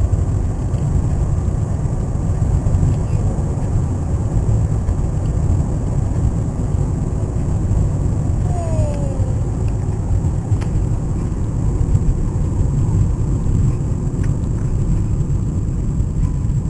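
Steady road and engine rumble inside a moving car's cabin. A single short cry that falls in pitch is heard about halfway through.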